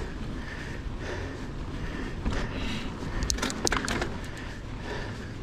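Low rumble of wind and movement noise on the microphone, with a short cluster of sharp clicks and crackles about three and a half seconds in.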